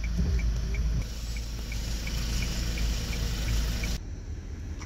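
Car engine idling, heard inside the cabin, with the turn-signal relay ticking about three times a second. About four seconds in it cuts to a softer steady wash of water around the rubber boat.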